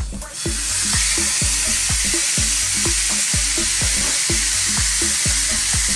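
A whole tilapia in a yogurt tikka marinade sizzling steadily on a hot flat griddle plate. The sizzle starts just as the fish goes down. A steady background music beat runs underneath.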